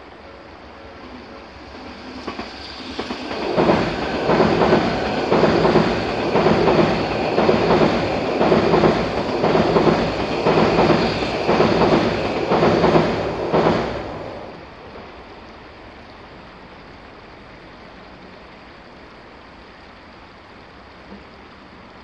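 An Odakyu electric commuter train runs past. It builds up, then its wheels clack rhythmically over the rail joints, a knock every half second to a second for about ten seconds, then it fades away.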